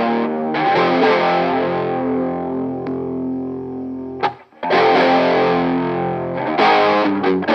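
Distorted electric guitar chords played through a Nobels CHO mini chorus/flanger pedal. A chord rings and slowly fades, then after a brief break new chords are struck about halfway through and again near the end.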